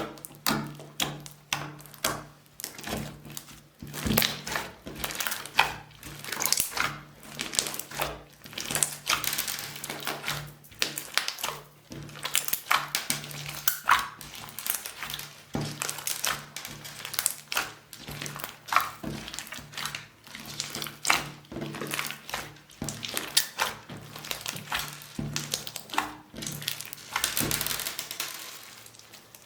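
Slime mixed with beads being squeezed and kneaded by hand: a dense, irregular run of wet pops and clicking crackles, over light background music.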